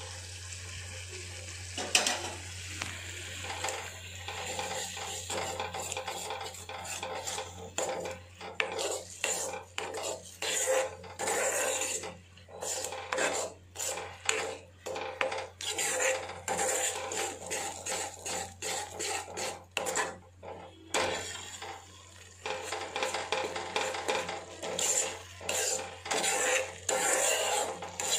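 Steel ladle stirring and scraping against the sides and bottom of an iron kadai, mixing spice powders into a tamarind liquid. It makes repeated quick scraping strokes with short pauses between bouts.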